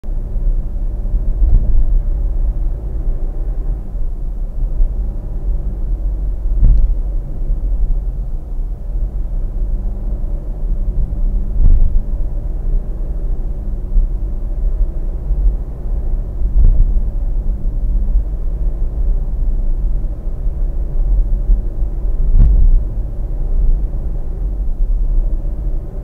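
Steady road and engine rumble inside a car cruising at about 65 km/h, picked up by a windshield dashcam, with a short thump about every five seconds.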